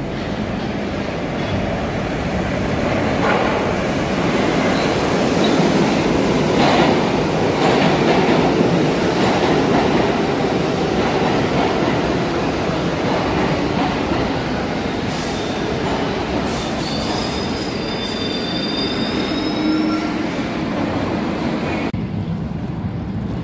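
New York City subway train running past along the platform, a steady loud rumble of wheels on rail, loudest in the middle. In the second half come a few sharp clicks, then a brief high wheel squeal near the end.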